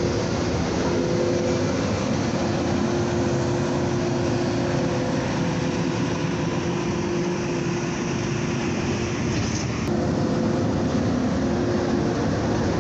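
Steady running noise of a moving vehicle, with a low humming drone held under it. The sound changes abruptly about ten seconds in, with a short click and the hiss in the high end falling away.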